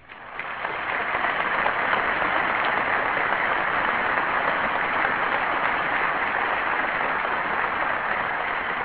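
Audience applauding. The clapping builds up in the first second, holds steady, and starts to fade near the end.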